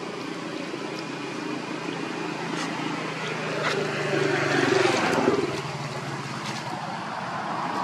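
A motor engine running, growing louder about four to five seconds in and then easing off.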